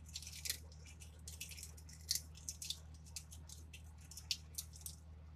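Dry bay leaves being crushed between fingers: a run of short, crisp crackles, irregular and stopping near the end, over a steady low hum.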